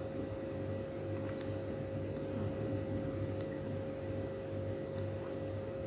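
Tap water running in a thin stream into a stainless-steel sink, a steady hiss with a steady hum and a low pulsing drone underneath.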